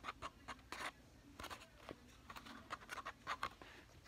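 A plastic stir stick scraping inside a foam cup while slime is mixed: faint, quick scratchy strokes in uneven runs, several a second.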